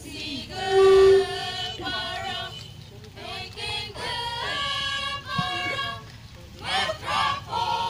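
A choir of young voices singing in held notes, amplified through a loudspeaker, with a brief loud steady tone about a second in.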